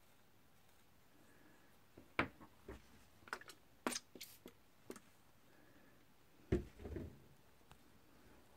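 Scattered light clicks and knocks of a sculpting tool and a clay piece being handled and set down on a desk, with a couple of heavier thumps about six and a half seconds in.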